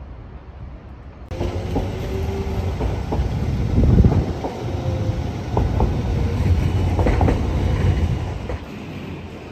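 Street trams running along street track: a low rumble with a series of knocks as the wheels cross rail joints and points, and a few brief whines. It starts abruptly about a second in and eases off near the end.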